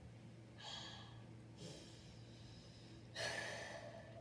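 A girl breathing out audibly a few times, each breath lasting about a second, the loudest starting near the end.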